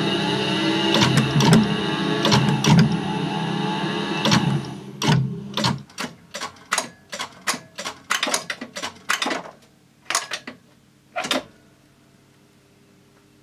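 Studer A80 reel-to-reel tape recorder's transport running with a steady whir and hum and a few knocks, partly picked up through contact microphones on the chassis. About five seconds in it winds down, and a series of sharp clicks from the transport buttons and relays follows, about a dozen over six seconds, leaving a faint low hum.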